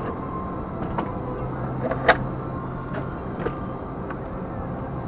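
Steady hum inside a Boeing 747-400's passenger cabin, broken by a few short clicks and knocks, the loudest a sharp knock about two seconds in.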